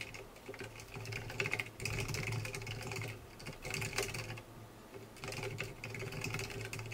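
Typing on a computer keyboard: uneven runs of quick keystrokes with short pauses between them.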